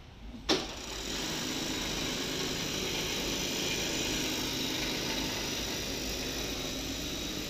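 SN-WB2 mattress tape edge machine starting with a sharp clack about half a second in, then its sewing head running steadily as it stitches binding tape along the mattress edge.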